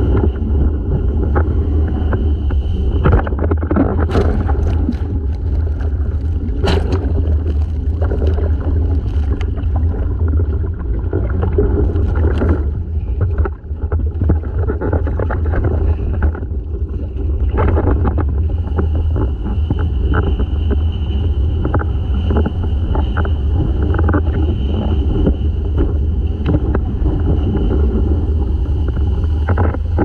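Heavy wind rumble on a boom-mounted action camera's microphone while windsurfing at speed over chop, with water spray and the board slapping on waves throughout. A steady high whine runs in the first few seconds and comes back about eighteen seconds in.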